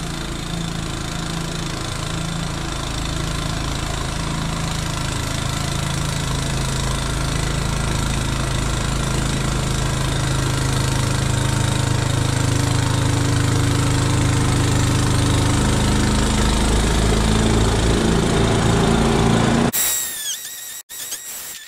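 Gas snowblower engine and auger running under load as it throws deep snow, sped up many times over so it sounds like a dentist's drill. About twenty seconds in it cuts off abruptly, giving way to short, falling high squeaks.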